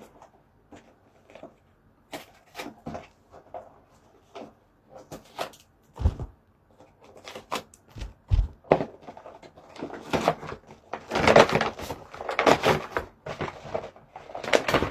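A gift being unwrapped by hand. Scattered light clicks and knocks come first, with a few dull thumps. From about two-thirds of the way in, louder crackling and rustling of the wrapping takes over as it is torn open.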